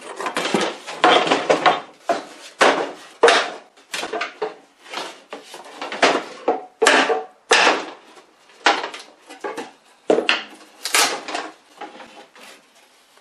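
Wooden boards and offcuts knocking and clattering against each other as they are shuffled and lifted: a quick, irregular series of sharp knocks.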